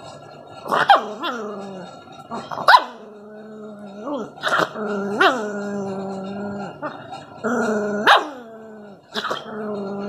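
Rottweiler puppy growling and barking at a rawhide chew stick pushed at its face: about seven sharp yaps that slide down in pitch into long, steady growls.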